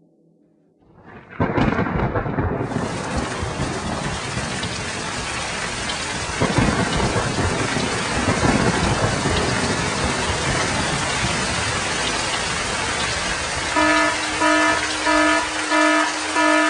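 Heavy downpour with rumbles of thunder, starting suddenly about a second in. Near the end a pitched, horn-like tone begins pulsing, about three blasts every two seconds.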